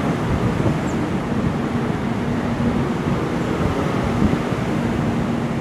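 Passenger train of executive-class coaches rolling past a platform: a steady rumble of wheels on rail, with a faint steady hum underneath.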